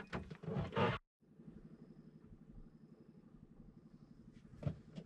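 A small engine running faintly with a steady low pulsing hum. It is preceded by a short loud noise that cuts off about a second in, and two short knocks come near the end.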